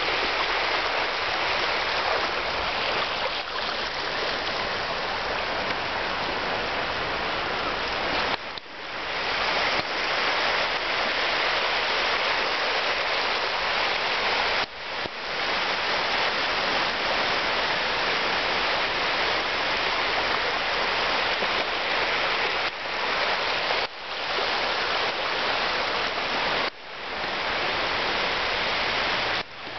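Small sea waves breaking and washing in the shallows: a steady rushing hiss, broken by a few brief sudden dips.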